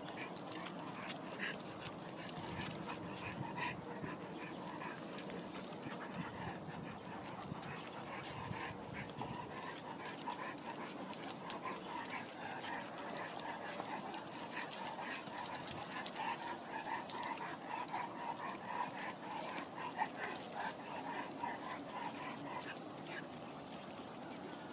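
A dog whining on and off, over many short footsteps on brick paving.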